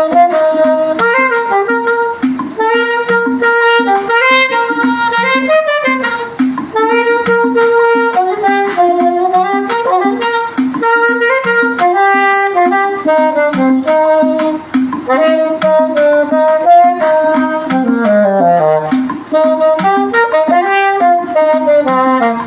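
Saxophone playing a hymn melody in held, stepping notes, with a lower, steadily pulsing accompaniment underneath.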